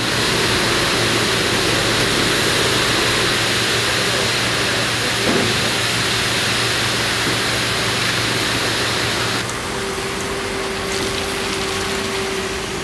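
Steady mechanical drone of machinery running, a low hum under a broad hiss. About nine and a half seconds in, the hiss drops away and a steady, higher hum is left.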